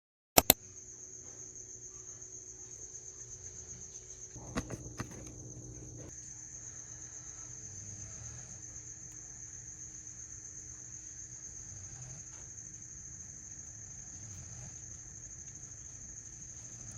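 Insects chirring in one steady, high continuous tone, with a few faint clicks about half a second in and again about five seconds in.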